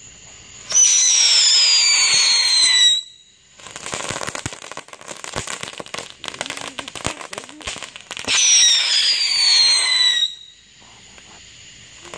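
Wheeled novelty 'Batmobile' ground firework going off: two loud whistles, each falling in pitch over about two seconds, with crackling sparks in between.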